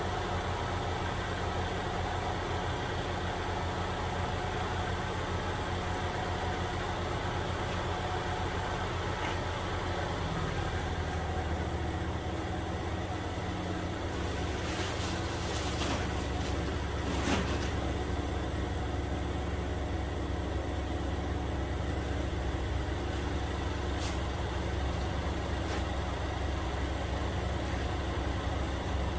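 Ford Escape 1.6-litre four-cylinder engine idling steadily. A brief flurry of clicks and rustling comes about halfway through.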